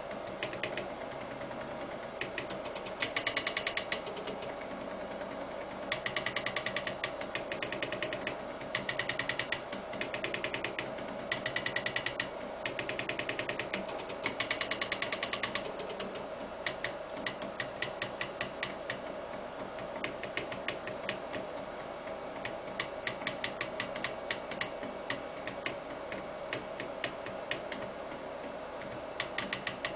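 Floppy-drive stepper motors of a homemade CNC pen plotter stepping as it draws small text: runs of rapid buzzing ticks, in dense bursts of about a second through the first half and sparser, scattered clicks later. A steady hum runs underneath.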